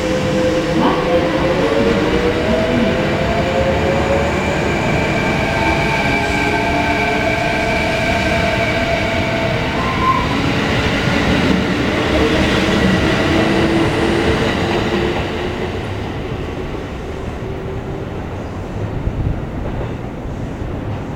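Six-car Kintetsu electric train made up of 2410, 9020 and 1422 series cars pulling away: its traction-motor whine climbs in pitch as it gathers speed, over heavy wheel-on-rail running noise. The sound drops off about fifteen seconds in as the last car clears.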